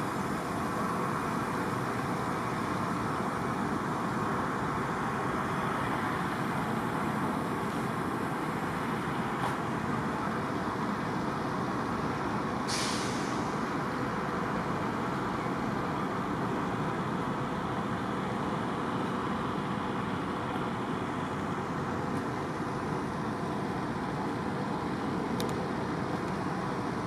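Steady low noise around a standing train. About 13 seconds in, a short sharp hiss of air is heard, like air brakes venting.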